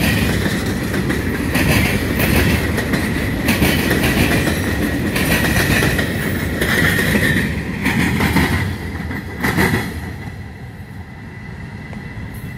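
Freight cars rolling past close by, their steel wheels clacking rhythmically over rail joints. About ten seconds in the last car passes, and the sound drops to a fainter rumble as the train moves away.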